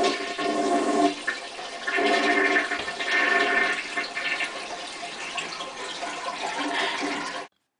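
Toilet flushing: a loud rush of swirling water with a steady pipe tone under it, cut off abruptly near the end.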